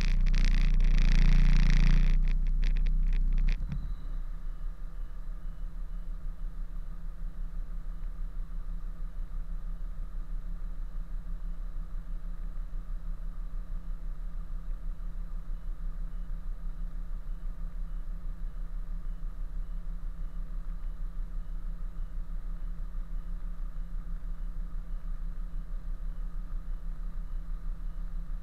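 Kenworth truck's diesel engine idling steadily with an even, pulsing beat. For the first three seconds or so it is masked by a louder hissing, rumbling noise that then stops.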